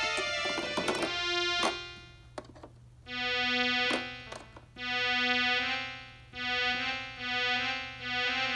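Kawai MS30 personal keyboard playing: a quick run of short notes, then after a brief pause with a few clicks, a series of held notes in one voice, each struck again every second or two.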